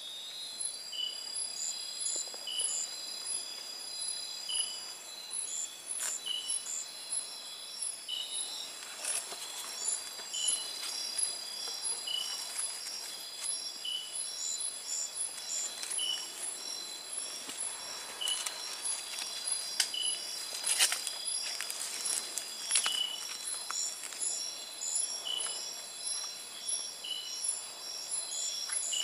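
Night-time tropical rainforest insect chorus: several insects calling at once in steady high trills and pulsing notes, with one short chirp repeating about once a second. A few brief crackles break in, the loudest about two-thirds of the way through.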